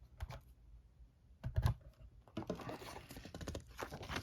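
A cardboard board-game box being opened and handled: a run of small clicks and rustles, with a louder knock about a second and a half in.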